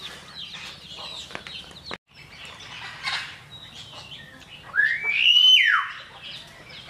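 Chickens clucking, with small birds chirping around them. About five seconds in comes one loud call that sweeps up, holds briefly and falls away.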